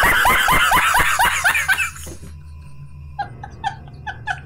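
A man laughing hard: a fast run of loud 'ha-ha' laughs, each one falling in pitch. After a short break about two seconds in, he goes on with higher-pitched, breathy laughs about four a second.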